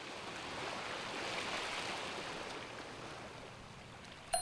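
Ocean surf washing onto a sandy beach: a steady rushing hiss that swells and then slowly eases, with a short sharp click near the end.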